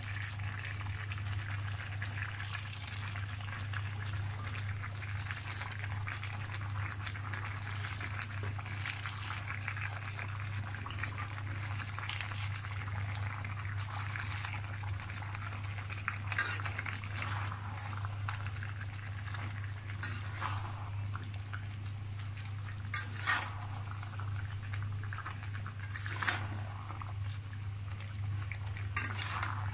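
Beef and potato curry bubbling in a wok on the stove over a steady low hum, while chopped cabbage is piled in. A metal spatula clinks and scrapes against the pan several times in the second half.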